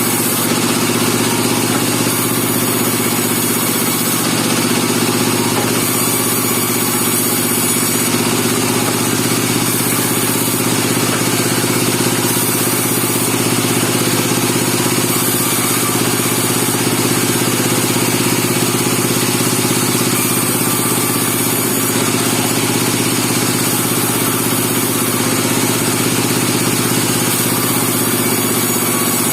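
Engine-driven band sawmill running steadily at a constant level.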